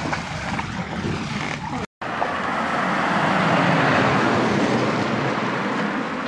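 A car passing on a wet road: tyre hiss swells to a peak and then fades away. The sound cuts out for a moment about two seconds in.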